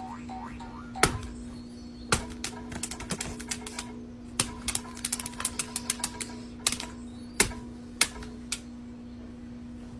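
Irregular sharp clicks and taps, some in quick flurries and a few louder single ones, over a steady low hum.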